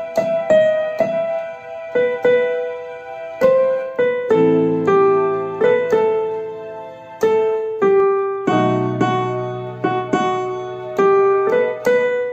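Electronic keyboard with a piano voice playing a slow song melody in E minor, one struck note after another, each ringing and fading, with left-hand chords added about four and eight and a half seconds in.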